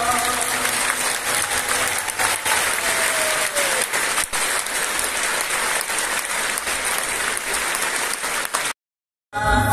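Concert audience applauding, the last sung note dying away in the first half second. The sound drops out briefly near the end, then band music starts.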